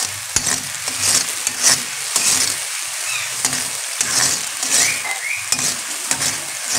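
Onion paste sizzling in hot oil in a wok while a spatula stirs it, the spatula scraping the pan about every half second over a steady frying hiss.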